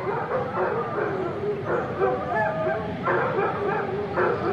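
A kennel full of dogs barking and yipping over one another in a dense, unbroken din.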